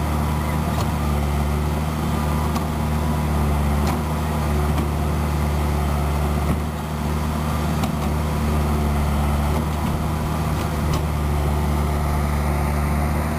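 Excavator's diesel engine running steadily, with a few faint clicks and one short knock about six and a half seconds in.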